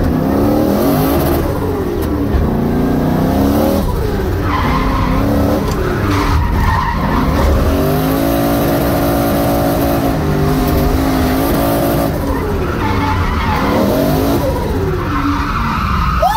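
Drift car's engine revving up and dropping back again and again, held high for a couple of seconds near the middle, with tyres skidding as the car slides.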